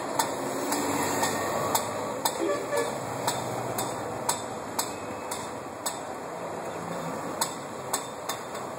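Road traffic going by, with an auto-rickshaw close by at the start and a motorcycle and vans approaching. Over it runs a sharp tick at an even pace of about two a second.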